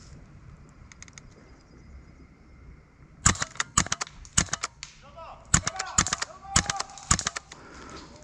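Airsoft gunfire: about fifteen sharp shots in irregular bursts, starting about three seconds in and stopping shortly after seven seconds.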